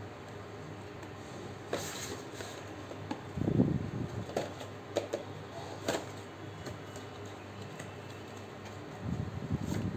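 Cardboard packaging being handled and opened by hand: scraping and rubbing of thin card, with a few sharp clicks and taps as the box flap is pulled open. The loudest handling comes about three and a half seconds in and again near the end.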